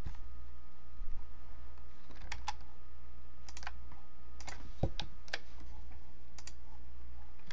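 Computer keyboard typing: scattered, irregular keystrokes and clicks starting about two seconds in, over a steady low hum.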